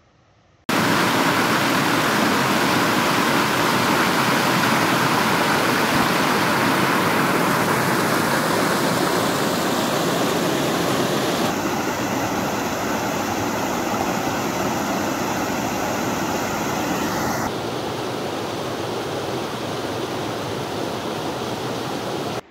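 Steady rush of a mountain waterfall, a loud even wash of falling water. It starts abruptly under a second in, shifts slightly in tone twice and cuts off just before the end.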